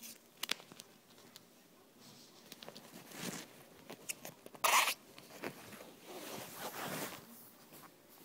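Clear duct tape being pulled off the roll to seal a box: several rasping rips, the loudest a short one just before the middle, with small clicks and handling knocks between them.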